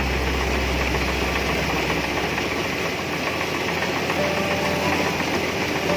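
Kubota rice combine harvester running under load as it cuts a paddy: a steady engine drone and the clatter of the reel and cutting header. A deep low hum is strong for the first two or three seconds, then fades.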